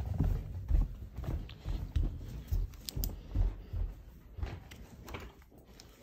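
Footsteps of a person walking: a run of low thuds, about two a second, dying away near the end.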